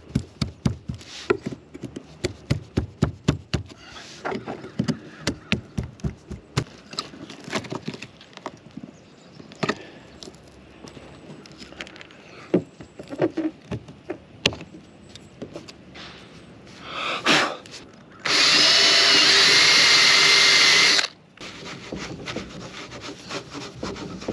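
Clicks, taps and scraping as an old clearance-light base is worked off the motorhome roof. Near the end a cordless drill with a disc attachment runs steadily for about three seconds, after a short burst just before, and stops suddenly; this is the loudest sound.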